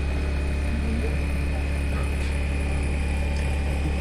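Steady, unchanging low rumble with a faint, thin high-pitched whine over it.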